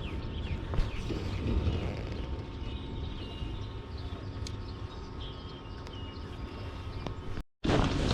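Small birds chirping in short repeated notes over a low, steady wind rumble. The sound drops out for a moment near the end, then comes back as much louder wind noise.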